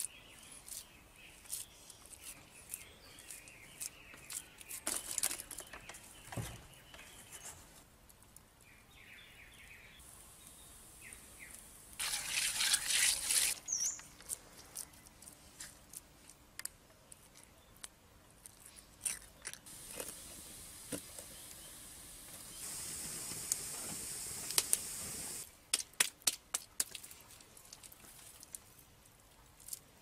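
Wet clay being pressed, patted and smoothed by hand, with scattered soft taps and clicks and occasional bird chirps. A loud rushing hiss lasts about two seconds around twelve seconds in, and a steadier high hiss runs for a few seconds a little past the middle.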